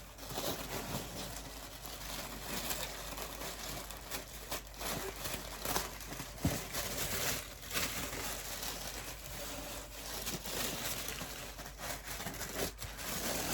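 Packing paper and crinkle-cut paper shred filler rustling and crinkling as it is handled, in uneven spurts with a few small ticks.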